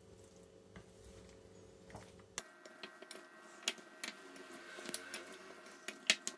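Fork clicking and scraping against a glass bowl while mixing cornflour-coated chicken pieces: irregular light clicks, few at first and more frequent from about a third of the way in.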